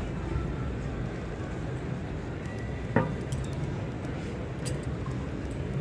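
Ambience of a large, busy exhibition hall: a steady low hum with faint, indistinct crowd chatter, and a single sharp click about three seconds in.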